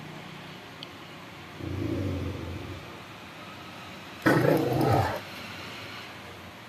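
A Rottweiler growls low for about a second, then gives one loud, sudden bark about four seconds in.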